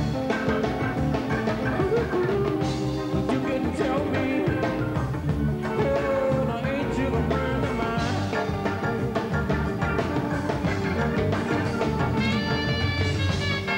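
Live band music: a full rock and R&B band with drum kit and keyboard playing steadily. About twelve seconds in, a bright horn line, a saxophone, comes in on top.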